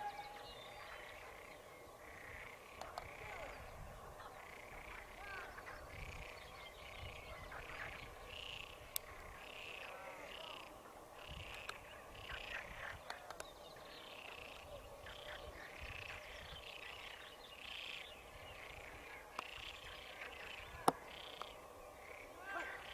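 Faint rural outdoor ambience with a steady run of short, high animal calls repeating a few times a second, and a couple of sharp clicks.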